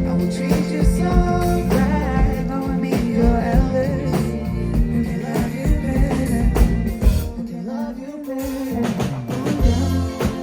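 Band playing with singing over drums, bass and guitar. The bass and drums drop away briefly about three-quarters of the way through, then come back in.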